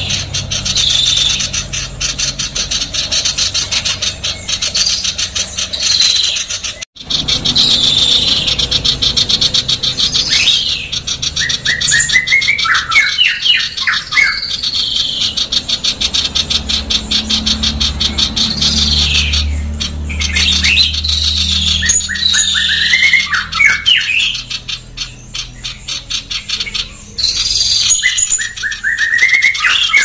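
Female common iora calling non-stop: a fast, dense, harsh rasping chatter, broken twice by clusters of short, quick whistled notes.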